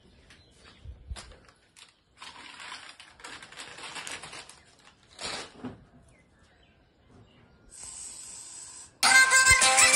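Bursts of plastic-bag rustling and crinkling, with a short steady hiss near the end. Loud background music with a shaken rattle cuts in suddenly about nine seconds in.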